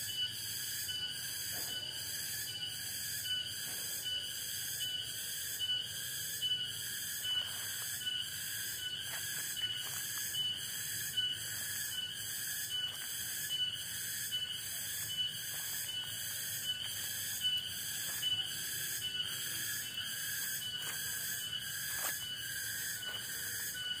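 Forest insect chorus: several layers of steady high-pitched buzzing and trilling, the highest one pulsing evenly about three times every two seconds.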